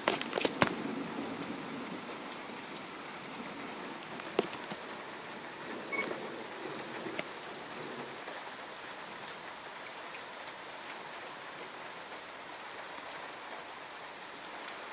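Steady rain falling during a thunderstorm, with the tail of a thunder rumble dying away in the first second and a few sharp taps, near the start and again about four and six seconds in.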